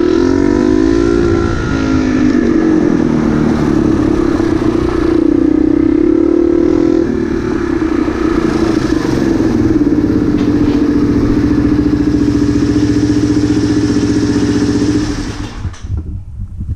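Motorcycle engine running at low speed, its pitch rising and falling with the throttle, then switched off near the end, leaving a few scattered clattery sounds.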